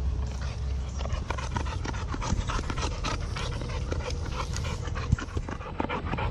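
Renascence Bulldogge panting close by in short, quick breaths, with a brief knock about five seconds in.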